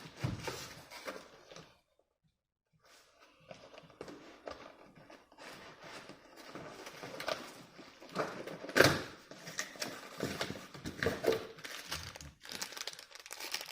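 Plastic packaging crinkling and rustling in irregular handfuls as amplifier box contents are handled, with a pause of about a second early on and one sharp knock a little under nine seconds in.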